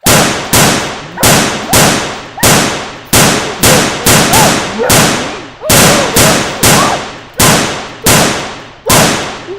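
Nerf blasters firing in a rapid string of about eighteen sharp shots, roughly two a second, each with a long fading tail, like gunfire.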